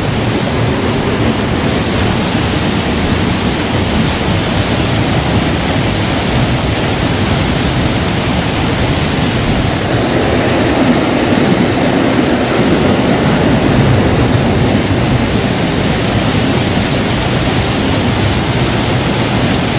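Creek water rushing over rocks: a loud, steady rush with no break.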